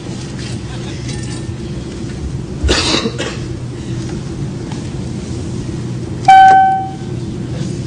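Airliner cabin call-button chime: a single clear ding about six seconds in, dying away over about half a second, over a steady low cabin hum. A short noisy burst comes about three seconds in.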